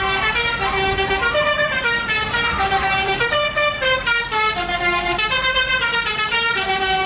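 Tour bus's multi-tone telolet horn playing a melody: a continuous run of loud horn notes stepping up and down in pitch, often two or more sounding together.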